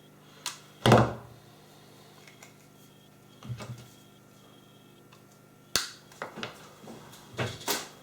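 A few scattered knocks and clicks of things being picked up and put down on a workbench, the loudest a thunk about a second in and a sharp click near six seconds, with a small cluster near the end.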